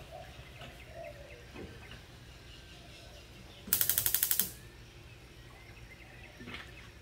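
A seasoning container worked over a frying pan: a quick rattling run of about ten sharp clicks lasting under a second, midway through.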